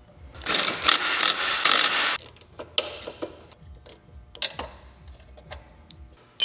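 Hand-tool work on a snowblower's drive parts: a harsh scraping or hissing burst of about two seconds, then scattered metal clicks and knocks.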